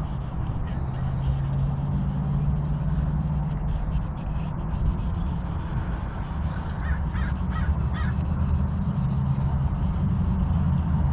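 Light hand sanding of a plastic headlight lens with folded 2000-grit sandpaper, a steady soft rubbing under almost no pressure. About seven seconds in, a bird calls about four times.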